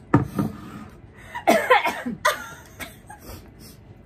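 Women laughing in a few short bursts.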